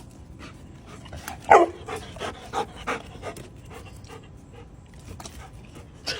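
Labrador retriever panting in quick breaths, with one short yelp falling in pitch about a second and a half in.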